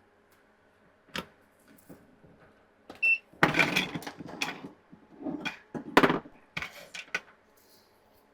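Tools and a circuit board being handled on a workbench: a sharp click about a second in, a brief high beep just after three seconds, then an irregular run of clattering knocks and scrapes.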